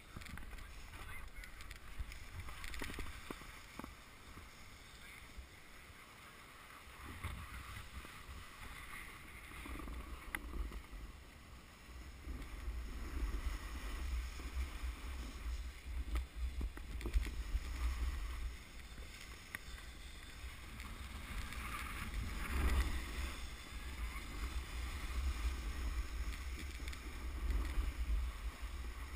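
Snowboard sliding over packed snow: an uneven scraping hiss that swells and fades with the turns, loudest about two-thirds of the way through, over low wind rumble on the camera's microphone.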